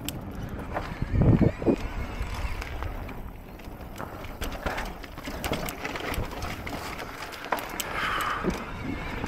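Electric mountain bike rattling over a rough dirt trail on a descent: tyres on dirt with repeated knocks and clatter from the bike as it hits bumps and roots.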